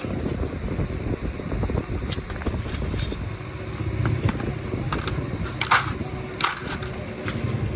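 Metal parts and tools clinking and clattering, about half a dozen sharp clinks, the loudest a little before and after 6 seconds in, over a steady low rumble.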